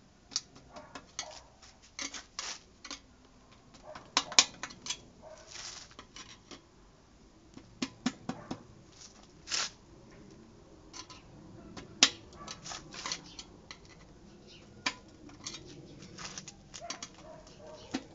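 Irregular clicks, taps and knocks of a screwdriver and hard plastic parts as a scooter's fuel level sender and its locking ring are worked back into place on the fuel tank. The sharpest knocks come about four seconds in and again about twelve seconds in, with a short scrape or two between.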